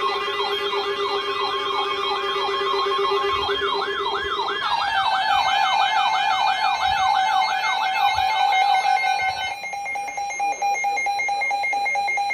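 Electronic emergency alert tone: a fast siren-like warble, about three sweeps a second, layered over steady tones. The mix changes about a third of the way in. The warble stops about two-thirds of the way through, leaving a steady tone that cuts off at the end.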